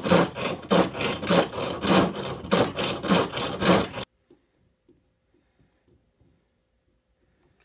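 Foot-powered reciprocating lathe, sprung with exercise bands, turning a lemonwood billet: a turning tool scrapes and cuts in rhythmic strokes, about three every two seconds, as the work spins back and forth. The strokes cut off suddenly about four seconds in, leaving near silence with a few faint clicks.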